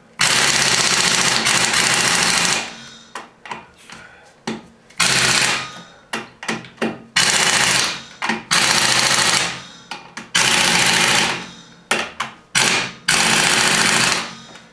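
Pneumatic impact wrench rattling in five long bursts of one to two and a half seconds each, with short blips between, as it runs lug nuts onto a wheel and hammers them tight.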